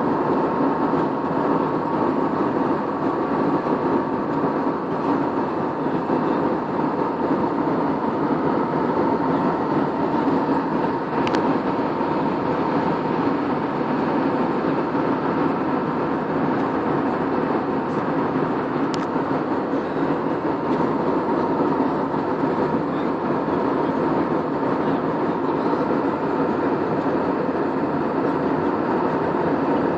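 Steady drone of an airliner cabin, engine and air noise with a faint steady hum in it; two faint clicks, about 11 and 19 seconds in.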